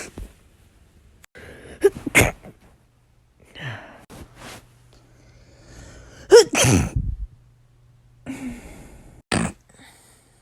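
A person sneezing repeatedly: about four loud, sudden sneezes with quieter breaths between them.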